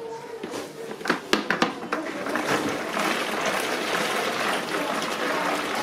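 Hand-cranked manual food chopper being turned to purée tomatoes. There are a few clicks near the start as the lid is seated, then a steady churning from about two seconds in as the blades spin through the wet tomato.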